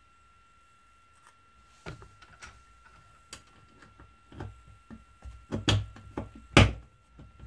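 White plastic end cap of an IKEA TUPPLUR roller blind being fitted onto its wall bracket: a string of small plastic clicks and knocks that get louder toward the end. The loudest knock comes about a second before the end, as the cap is pressed home.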